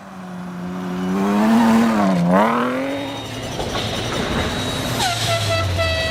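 Rally car engine being driven hard: its pitch climbs, dips sharply about two seconds in and rises again. About five seconds in, a second, higher engine tone comes in, drops quickly in pitch and then holds.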